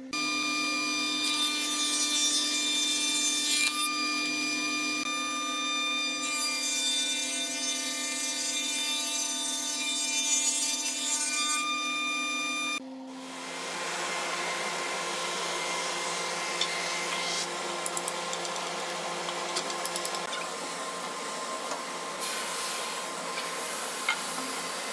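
Spindle moulder (shaper) running under a power feeder, with two passes of board being cut, each a few seconds long over the steady motor hum. About halfway it breaks off abruptly to the steady noise of a wide-belt sander running.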